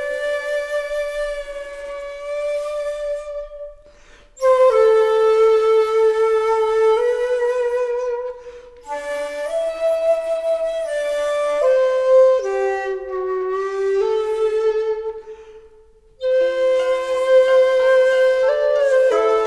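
Background music: a slow melody of long held notes that breaks off briefly about four, eight and sixteen seconds in, with several notes held together near the end.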